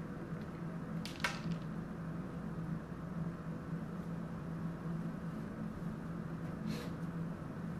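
A steady low hum, with two brief faint crackly clicks, one about a second in and one near the end.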